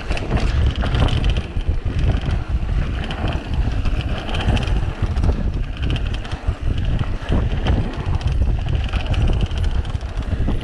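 Mountain bike ridden fast down a dirt trail, heard from the handlebars: heavy wind buffeting on the microphone over a constant rapid rattle from a tripod clamped to the handlebars.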